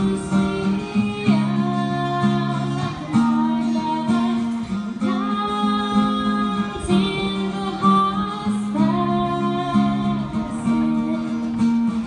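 Live song: a woman sings held, flowing notes over a strummed acoustic guitar.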